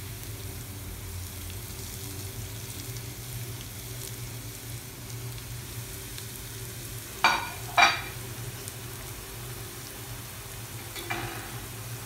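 Shallots frying in oil in a nonstick pan, a steady sizzle, as grated coconut and cumin seed go in. Two sharp knocks about half a second apart a little after seven seconds, and a fainter one near the end.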